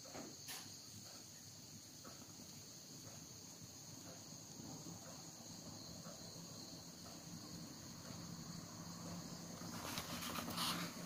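Steady background chirring of crickets, a continuous high-pitched drone. Near the end there is a brief rustle of paper from the book being handled.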